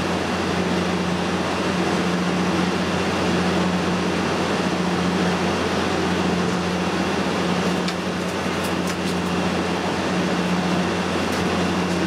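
Neon sign transformer driving a high-voltage arc inside a halogen light bulb: a steady electrical buzz and hiss over a low mains hum.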